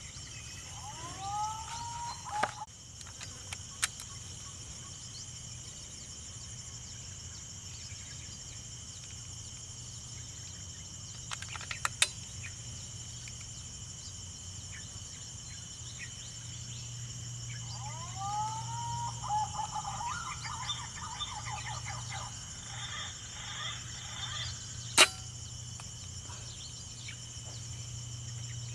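A PCP air rifle fires once with a single sharp crack about 25 seconds in. Before it, two sets of whistled, arching bird calls are heard, one at the start and one a few seconds before the shot, plus a few small clicks, over a steady high drone of insects.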